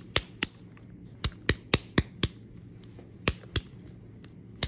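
Cupped hands slapping a ball of freshly wedged clay back and forth to round it off: a series of sharp, wet slaps in short runs, about four a second, with brief pauses between runs.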